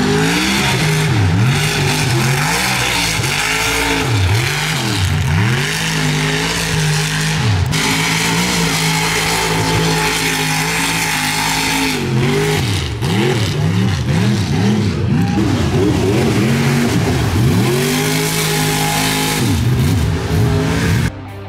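Mud bog trucks' engines revving hard at high revs, the pitch swinging sharply down and back up many times.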